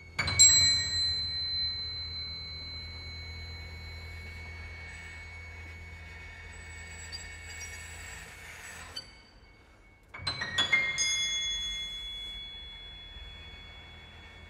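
Contemporary chamber ensemble music: two clusters of high, struck, bell-like metallic tones, one at the start and one about ten seconds in. Each cluster rings on for several seconds over a low steady hum, with a brief near-silence just before the second.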